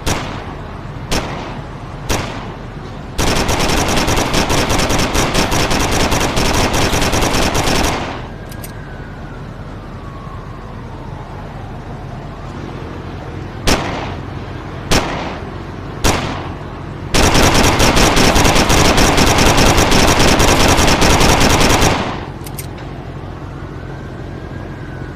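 FN P90 submachine gun firing: three single shots about a second apart, then a long full-auto burst lasting about five seconds, and the same sequence again. A faint falling whine trails off after each burst.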